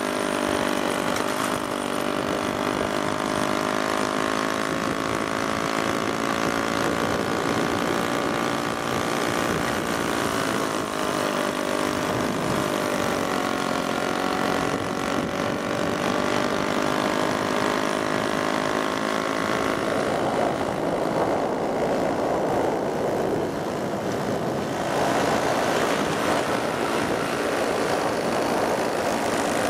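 VéloSoleX mopeds' small single-cylinder two-stroke engines running at a steady cruising speed, with a steady hum that wavers slightly in pitch. About two-thirds of the way through, a rougher, noisier rush takes over.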